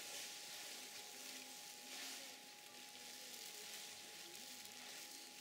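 Quiet room tone: a steady faint hiss with a thin, steady high hum running under it.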